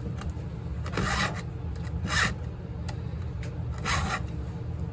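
Round file being pushed across a chainsaw chain's cutters, three rasping strokes with gaps between them, as the chain of a Stihl MS261 is hand-sharpened.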